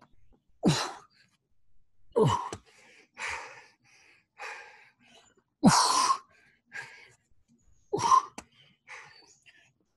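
A man breathing hard from exertion during push-ups: forceful exhales, four of them voiced like short grunts, with fainter panting breaths in between, one every second or so.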